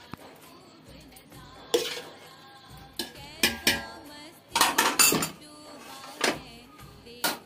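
A metal spoon clinking and scraping against a steel bowl and a stainless steel cooking pot as chicken curry is spooned onto rice: several sharp clinks spread through, with a quick cluster around the middle.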